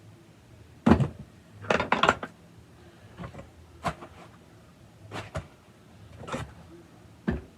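Irregular clunks and knocks, about eight in all, of old chainsaw parts being handled and set down while they are unpacked. The loudest comes about a second in, with a quick cluster just after it.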